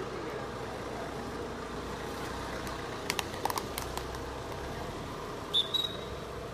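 Steady outdoor hubbub of spectators at a kabaddi court, with a few sharp clicks about halfway through and a short, high referee's whistle blast near the end.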